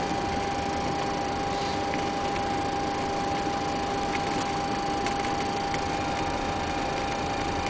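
Steady cockpit background noise of a Boeing 737-400 parked at the gate: a continuous rush of air and equipment noise with a steady mid-pitched whine, and a few faint clicks of switches being set on the panels.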